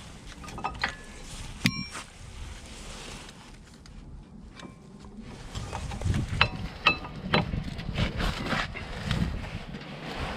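Metal clinks and knocks from brake pads and tools being handled while new pads are fitted to a disc brake caliper. There is a sharp ringing clink about two seconds in, then a run of knocks a little past halfway.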